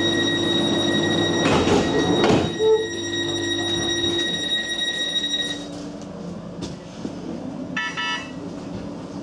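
Class 484 train's sliding passenger doors closing: a rush of movement ending in a thud about two and a half seconds in. A steady high tone stops a few seconds later, and a short pitched beep sounds near the end as the train moves off.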